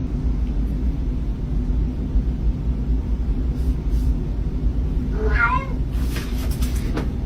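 A cat gives one short, wavering meow about five seconds in, over a steady low rumble. A few clicks follow near the end.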